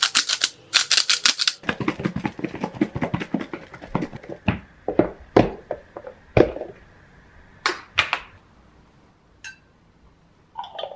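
A salt grinder twisted over a plastic food container, a fast run of grinding clicks for the first few seconds. Then the lidded plastic container of tofu cubes and starch is shaken gently: a handful of soft knocks. A light clink comes near the end.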